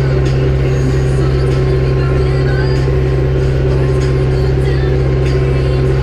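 Zetor 6340 tractor's four-cylinder diesel engine droning steadily under load, heard inside the cab, with light rattles and clicks from the cab.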